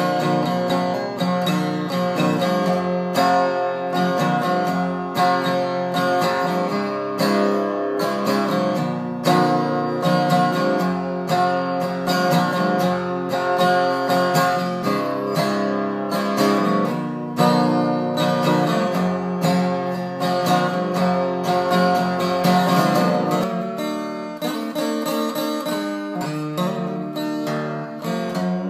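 A 1964 Gibson J-45 steel-string acoustic guitar being played: a continuous run of quick picked notes and chords. From about 23 seconds in the lowest bass notes drop away and the playing gets a little softer.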